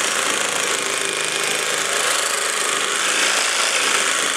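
Reciprocating saw fitted with an 18-teeth-per-inch blade cutting through black ABS plastic drain pipe, running steadily at full speed through the cut.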